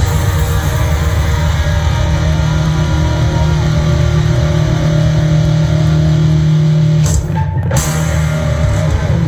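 Live rock band playing loudly, with electric guitar and drum kit, without vocals; the upper range briefly thins out about seven seconds in.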